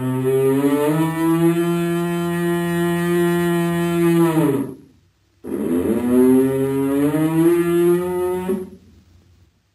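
Elk bellowing: two long, low calls, the first about five seconds long, then a second, shorter call starting about half-way through that trails off near the end.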